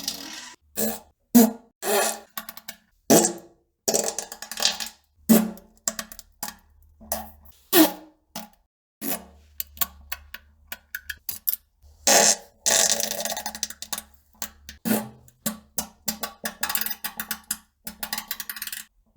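A rapid string of short farts, one after another with brief silences between, some with a low buzzing pitch. In the last third they come thicker, with a few longer, hissier ones.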